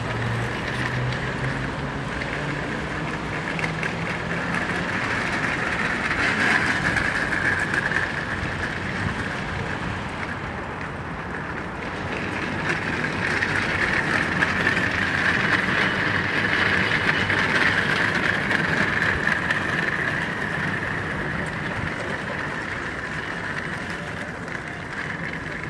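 Castor wheels of rolling partition screens rattling and rumbling over stone paving as the screens are pushed across a plaza. The rattle swells twice, in the middle of the stretch and again later.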